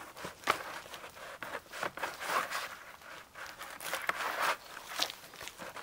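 Birch bark being pried and peeled away from a felled log along a lengthwise cut: irregular short scraping and tearing sounds, a few louder rips among them.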